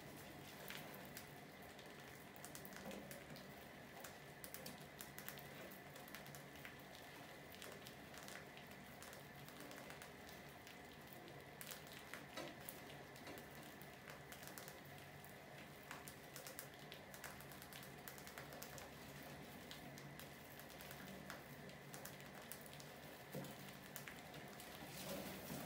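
Faint, irregular clicks and scratches of mice scrabbling on a plastic bucket trap and nibbling grain, with a faint steady high whine underneath.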